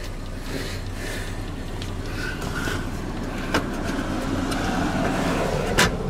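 Plastic dash-panel clips clicking as the trim around the headlight switch is pressed into place, with two sharp clicks about three and a half seconds in and near the end. Under them runs a steady low hum and the hiss of rain.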